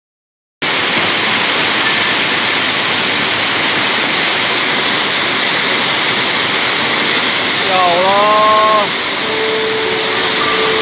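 Muddy flash-flood water rushing in a torrent: a loud, steady rush of water that starts abruptly about half a second in. A person's voice cries out about eight seconds in.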